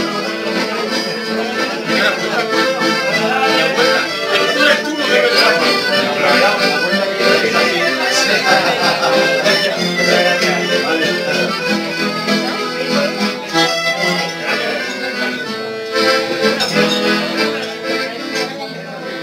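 Accordion playing a tune live, long held chords under a moving melody.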